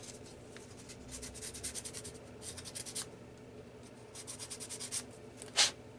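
Folded 400-grit sandpaper worked back and forth through the slot of a model locomotive's universal joint end, in three runs of quick, light scratchy strokes. It is smoothing out a slight grab so that the shaft slides freely. Near the end comes one short, louder swish.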